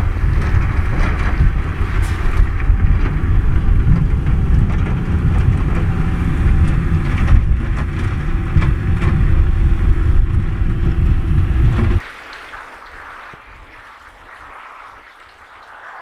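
Wind buffeting the microphone: a loud, steady low rumble that cuts off suddenly about twelve seconds in, leaving only faint background noise.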